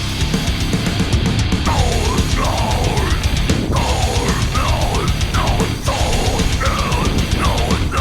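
Loud heavy rock background music with drums and electric guitar, a lead line sliding up and down in pitch.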